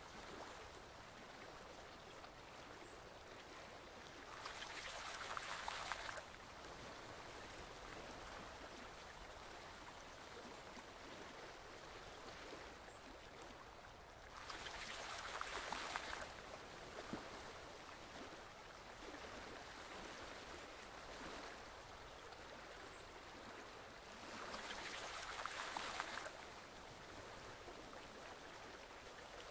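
Forest stream flowing steadily, with three louder surges of rushing water, each about two seconds long and about ten seconds apart.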